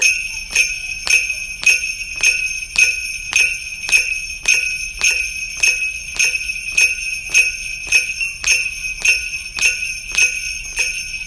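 Sleigh bells played as a rhythm part, shaken sharply on every beat in a steady pulse of about 105 beats per minute, with the bells jingling on between strokes.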